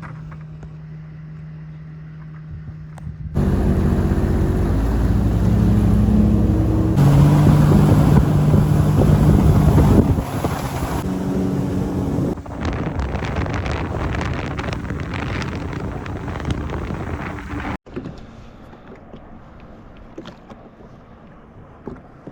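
Motorboat engine running under way, with wind rushing over the microphone. It comes in loud suddenly about three seconds in, changes pitch in steps, gives way to a rough rushing wash, and cuts off abruptly to a quieter rush near the end.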